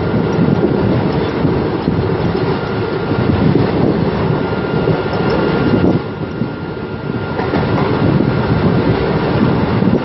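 Steady rumble and rush of an Indian Railways express passenger coach running fast, wheels on the rails with wind noise, heard from the coach doorway. The noise eases briefly about six seconds in, then comes back up.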